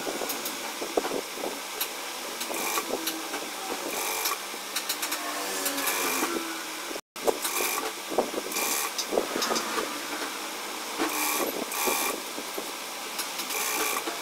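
Industrial lockstitch sewing machine running in short runs as it stitches the folded slit edge of a cotton top, its motor humming with repeated surges and knocks. There is a brief cut to silence about halfway through.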